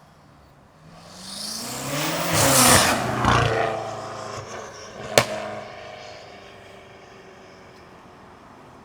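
BMW F90 M5's twin-turbo V8, with catless downpipes and a straight-through catback exhaust, accelerating hard as it passes: pitch rising to a loud peak, then dropping and fading as it goes away. A single sharp exhaust pop comes about five seconds in.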